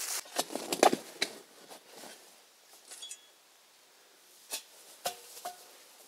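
Knocks and rustles of digging and handling in dry leaf litter and loose soil, loudest in the first second, then quiet. A few more clicks come near the end, with two short metal detector chirps among them.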